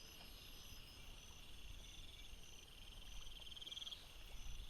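Faint chorus of insects chirping: a buzzy trill that swells and stops near the end, over short chirps repeating at a steady pace. A low rumble sits underneath.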